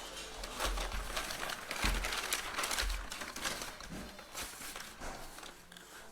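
Crinkling and rustling handling noise with scattered clicks and a few soft low thumps, quieter toward the end.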